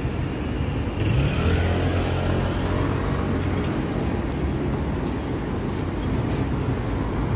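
City street traffic noise: a motor vehicle's engine running close by, its low hum coming up about a second in and holding steady over the road noise.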